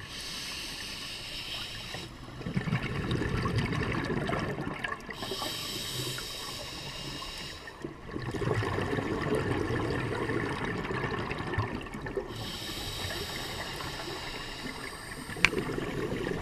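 Scuba regulator breathing underwater: a hiss on each inhale alternating with a longer, louder burble of exhaled bubbles, the exhales starting about 2 and 8 seconds in. A sharp click near the end.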